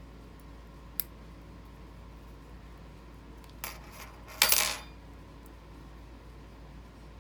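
Small metal lock parts clinking as they are handled during reassembly: a sharp tick about a second in, then a short metallic clatter with a brief ring about four and a half seconds in.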